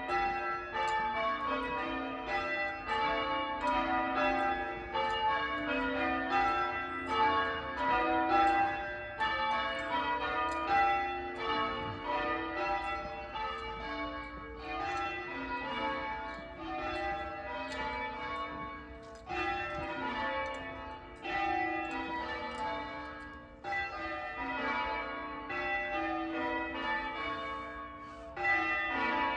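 Church tower bells ringing in a continuous, even succession of strikes on several different notes, each note ringing on under the next, in the manner of English change ringing.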